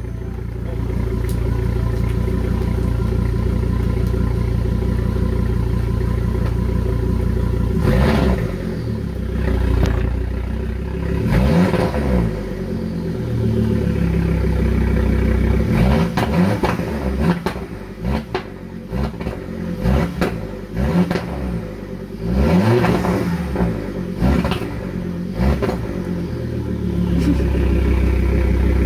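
2005 Volvo S60 2.5T's turbocharged inline-five running through a straight-piped 2.5-inch mild steel catback. It idles steadily, then from about eight seconds in is revved again and again in short blips with sharp pops between them, and settles back to idle near the end.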